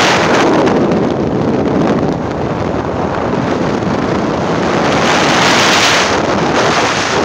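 Wind rushing over a phone's microphone on a moving motorcycle, a loud steady rush with the motorcycle's engine and tyre noise underneath.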